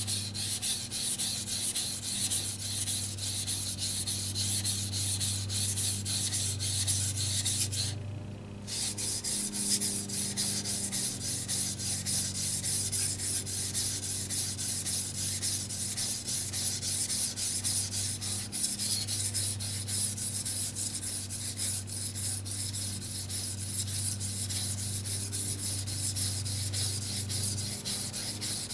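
Carbon-steel Japanese petty knife blade ground back and forth in rapid strokes on a wet Shapton Pro whetstone, held nearly flat to thin the blade behind the edge. The strokes stop briefly about eight seconds in, and a steady low hum runs underneath.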